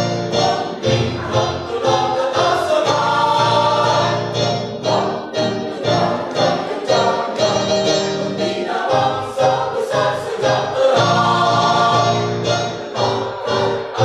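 Mixed choir of women and men singing a march in parts, full-voiced, with brief breaths between phrases.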